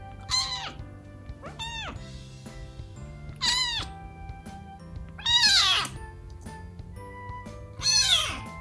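A young kitten meowing five times, high thin calls that rise and fall in pitch, spread a second or two apart; the last two are the loudest. Soft background music plays underneath.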